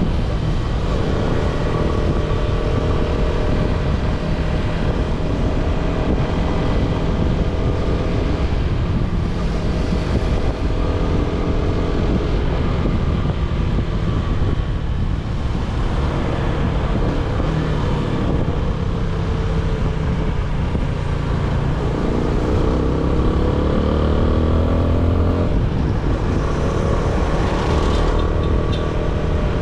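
Yamaha Sniper 155's single-cylinder engine through its stock exhaust, riding along with the engine note rising and falling; near the end it revs up in a clear rising sweep.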